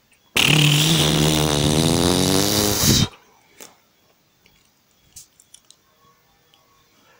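A sound effect: a loud, buzzy, rasping tone lasting about two and a half seconds, its pitch wavering up and down, cutting off sharply, followed by a few faint clicks.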